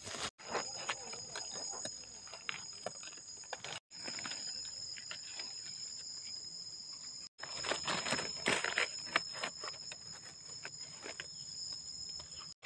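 Forest insects drone steadily on two high, shrill tones, over crackling and rustling of dry leaf litter as mushrooms are picked from the forest floor by hand. The rustling is loudest about eight to nine and a half seconds in, and the sound cuts out briefly three times.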